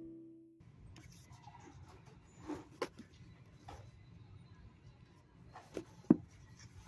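The last note of a background music track dies away. Then a low steady hum is heard, with a few faint, scattered clicks and knocks; the sharpest comes about six seconds in.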